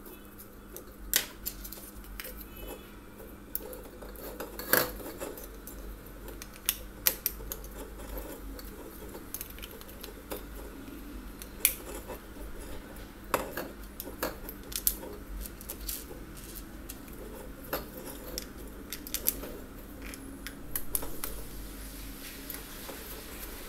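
Scattered light clicks, taps and scrapes of plastic and metal as a two-pin plug and a plastic bulb holder are handled and their small terminal screws are turned with a screwdriver, over a faint steady hum. The loudest click comes about five seconds in.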